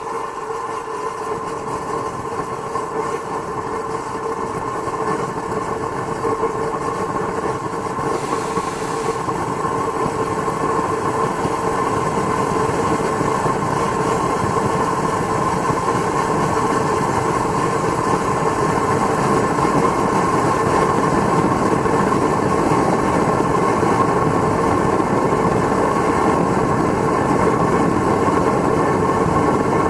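Homemade black-iron-pipe forced-air burner running on propane: a steady rushing flame and air sound with a constant hum. It grows gradually louder over the stretch.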